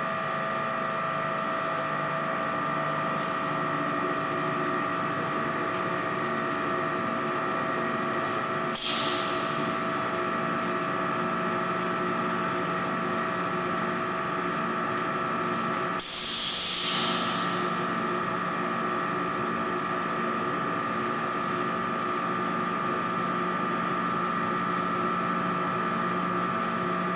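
Plastic rod milling machine running steadily, a continuous machine whine made of several steady tones. A short hiss comes about 9 s in, and a longer, louder hiss about 16 s in.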